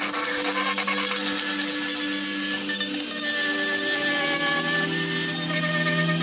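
Rotary tool (Dremel) with a sanding drum running at high speed and grinding rust off the steel handles of old pliers: a steady high-pitched whine with the rasp of abrasive on metal.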